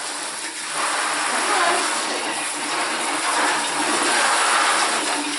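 Water from a handheld shower sprayer hissing steadily at full, unadjustable pressure as a puppy is rinsed. It swells up less than a second in.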